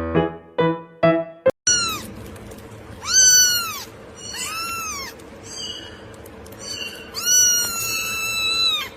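Piano music for about the first second and a half, then a domestic cat meowing: two short meows about three and four and a half seconds in, and one long, drawn-out meow near the end.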